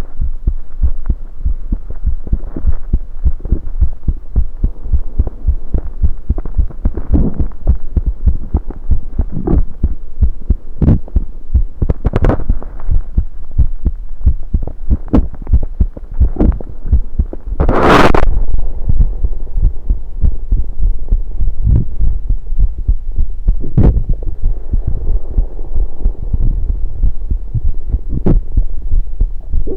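Heartbeat picked up through an electronic stethoscope on the chest: a steady run of low, muffled thumps over a constant low hum. A few sharper clicks break in, and about two-thirds of the way through there is one louder, longer noise lasting about half a second.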